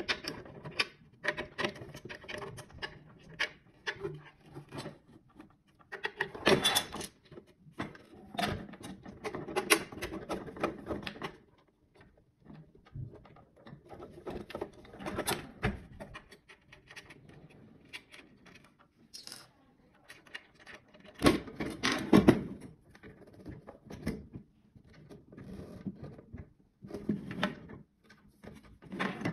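Hard plastic parts of a fiber-optic pedestal and its splice box being handled and fitted together: irregular knocks, clicks and scraping, loudest about six seconds in and again a little past twenty seconds.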